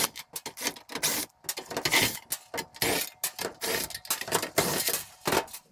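Cordless drill with a 1/4-inch driver bit backing screws out of the back panel of a dryer's control panel, heard as short, irregular bursts of scraping and rattling noise.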